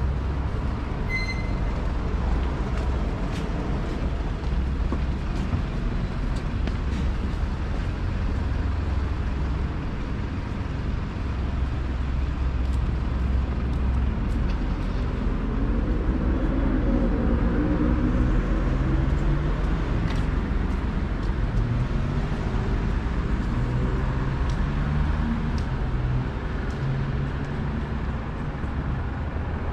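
City road traffic: a steady low rumble of cars and vans going past. A short high beep sounds about a second in, and in the second half a heavier vehicle's engine note rises and holds for several seconds.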